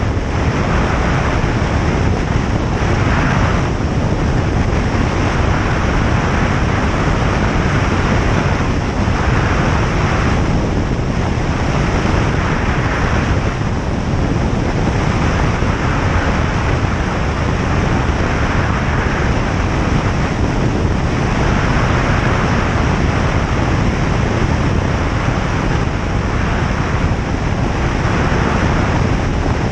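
Steady cabin noise of a single-engine light aircraft in flight: engine and propeller running with air rushing past, and a hiss that swells and fades every few seconds.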